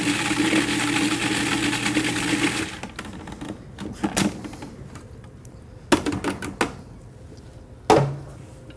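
Electric blender running steadily as it purées a green herb-and-oil marinade toward a pesto-like texture, then switching off about two and a half seconds in. A few sharp knocks and clicks of the container and utensils being handled follow, the sharpest near the end.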